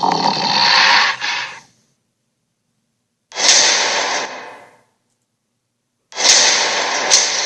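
Cartoon Tyrannosaurus creature sound effect: three rough, unpitched breaths or growls with silence between them. The first trails off early on, the second fades out over about a second and a half, and the third starts about six seconds in and runs to the end.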